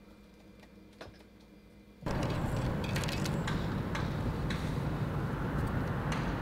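Faint room noise with a few scattered ticks, then about two seconds in a steady rushing outdoor noise cuts in suddenly, with irregular ticks over it.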